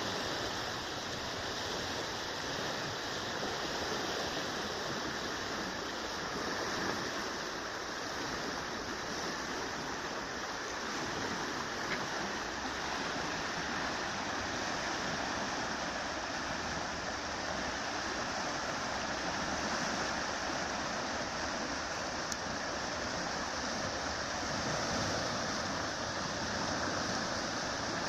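Steady rush of muddy floodwater in a swollen small river, pouring over a low concrete weir.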